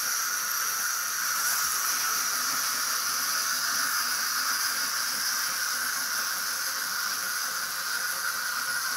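Several clockwork wind-up walking mechanisms, the wind-up bases of a Galt Robo Modeling kit, whirring steadily as the toys walk: an even, high-pitched whir.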